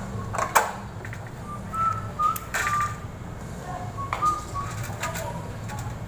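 Clicks and light knocks from a sheet-metal box-type fluorescent light fixture being handled and wired, over a steady low hum. A few short, high chirps come in the middle and again about four seconds in.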